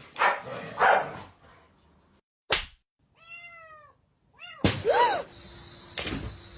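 A cat meowing several short meows that rise and fall in pitch, in the middle and toward the end. Before them come a couple of noisy bursts and one sharp knock.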